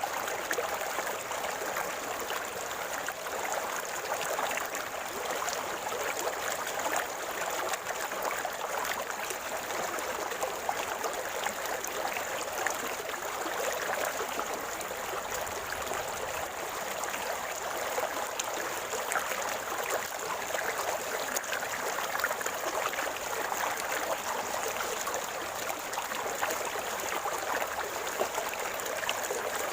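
Shallow river water running and gurgling steadily over stones, with many small splashes.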